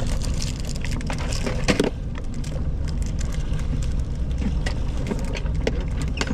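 Steady low rumble with scattered clicks and knocks of gear handled on a fishing boat, one louder clatter a little under two seconds in.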